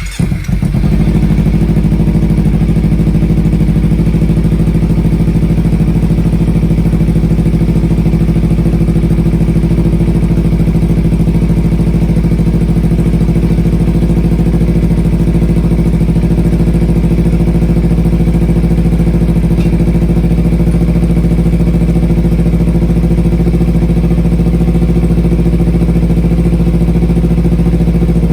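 Kawasaki Ninja 300's parallel-twin engine cold-started, catching at once and settling within a second into a steady idle. It is being warmed up for an oil change.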